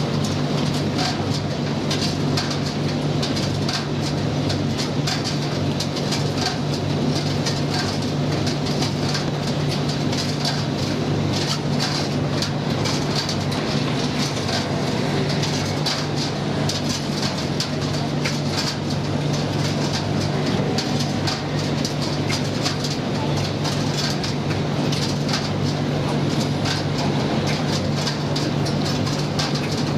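Commercial gas tumble dryer running, its drum turning with a steady hum and frequent light clicks from the tumbling load.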